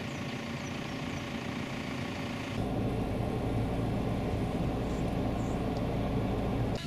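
Vehicle driving slowly, heard from inside the cabin: a steady low engine hum with road and tyre noise. It begins at a cut about two and a half seconds in, after a stretch of even outdoor background noise.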